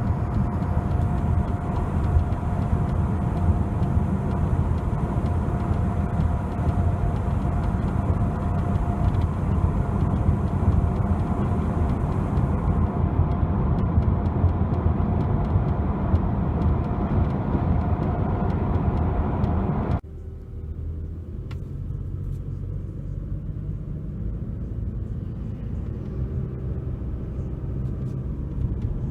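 Steady road and running noise of a Lexus CT200h heard from inside the cabin while driving. About two-thirds of the way through it cuts abruptly to a quieter stretch of similar driving noise with a few faint ticks.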